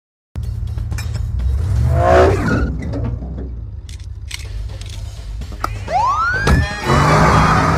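Film soundtrack of an animated police car: after a brief silence, a low engine rumble, then a single rising siren whoop about six seconds in, with music starting just after it.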